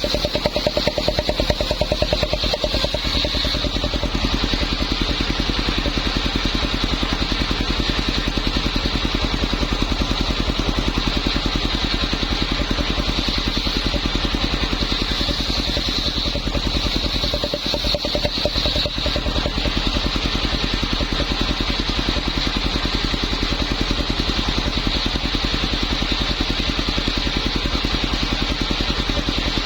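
Homemade circular saw running steadily: an even, engine-like drone with rapid pulsing and a constant high whine, dipping briefly a little past the middle.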